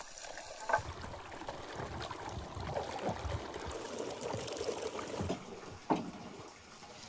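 Water sloshing and splashing, with two sharp knocks: one about a second in and one near the end.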